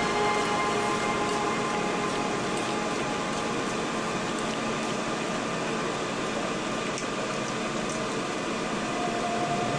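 Udon noodles sizzling in a hot wok as they are stir-fried: a steady hiss with faint scattered ticks.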